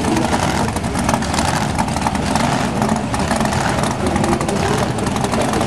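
Car engine running and revving under a loud, steady wash of noise.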